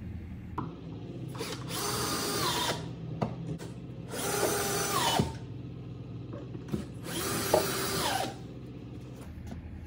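Cordless drill driving 3-inch wood screws through a 2x10 board into the wall studs: three separate runs of about a second and a half each, the motor's pitch shifting as each screw bites and pulls in.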